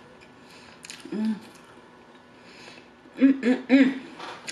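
A woman chewing food with faint wet mouth clicks. She makes a short closed-mouth hum about a second in, then three quick, louder hums near the end.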